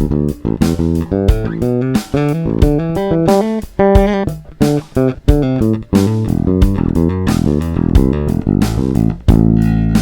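Moon JB-4 Classic Jazz Bass–style electric bass playing a busy line of short, sharply attacked plucked notes, several a second.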